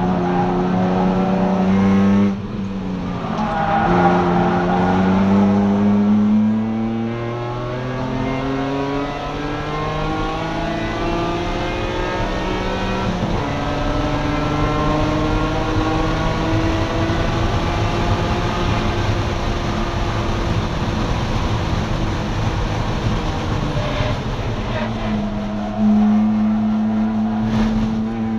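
BMW E46 track car's engine heard from inside the stripped, caged cabin under hard acceleration: its note climbs and drops back with quick upshifts in the first several seconds, then holds a long steady pull down a straight, with a sudden louder jump in pitch near the end.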